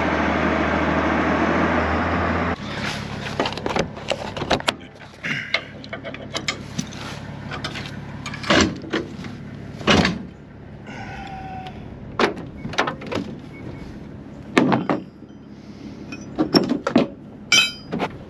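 Pickup truck engine running steadily for about two and a half seconds, then cutting off abruptly. A string of sharp knocks and clunks follows, several of them loud, like doors and metal parts being handled.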